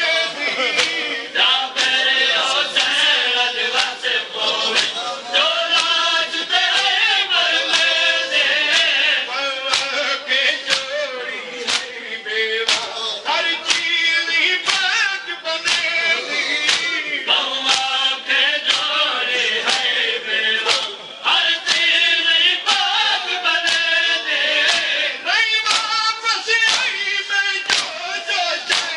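Men's voices chanting a noha, a Shia mourning lament, in chorus over a steady rhythm of sharp open-hand slaps on their chests (matam).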